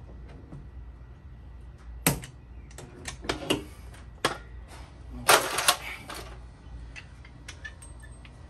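Slide hammer yanked against a pin welded to a dented car door, pulling the dent out: a series of sharp metallic knocks at irregular spacing, the loudest cluster about five seconds in.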